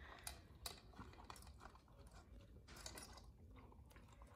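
Alaskan malamute puppy faintly chewing and crunching frozen carrot pieces, a scatter of small irregular crunches.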